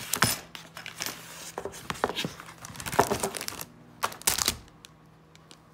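Cardboard product box being handled: irregular rustling and light knocks, with the loudest bumps a little past the middle, then stopping about a second before the end.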